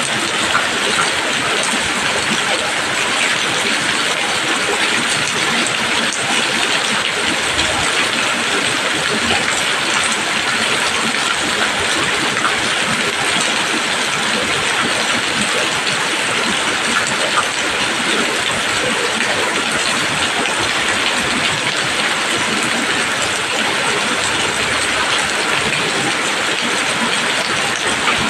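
Steady rain falling on leaves: an even, unbroken patter of many drops.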